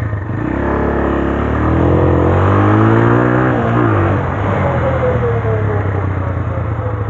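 Italika RT180 motorcycle's single-cylinder engine running under way, revving up for about three seconds and then easing off. A high whine falls in pitch through the second half, on a downhill stretch where the rider says the oversized front tyre can be heard rubbing.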